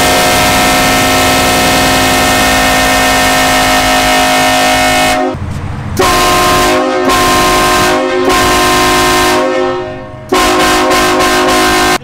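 Truck-mounted air train horn, several horn tones sounding together as a chord: one long blast of about five seconds, then four shorter blasts on a higher chord, the last cut off suddenly.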